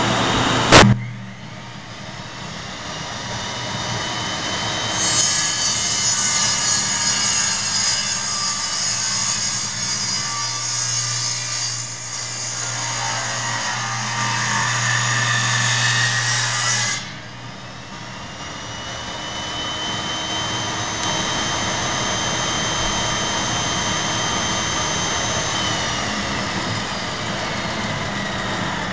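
Delta Shopmaster table saw with a shop vac hooked to its sealed base: a sharp knock about a second in, the saw's whine rising as it comes up to speed, then the blade cutting through a wooden board for about twelve seconds. It then runs free and winds down near the end, while the shop vac keeps running steadily underneath, drawing off the sawdust.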